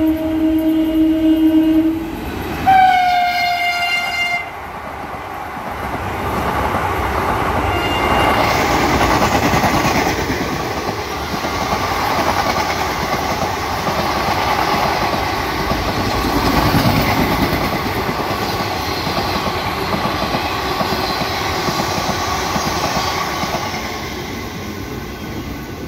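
Train horn sounding twice, a low steady blast then a shorter higher one, followed by a train of ICF passenger coaches passing on the near track: a steady loud rumble and rattle of wheels on rails for nearly twenty seconds, easing off near the end.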